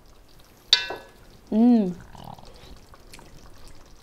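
A metal spoon clinks once against the cooking pot with a short ring, then about a second later a short, loud hummed "mmm" whose pitch rises and falls: a sound of enjoyment while tasting the sauce.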